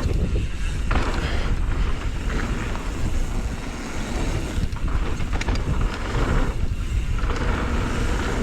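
Wind buffeting the microphone over the rumble and rattle of a bike's tyres rolling down a dirt trail, swelling and easing unevenly with the ride.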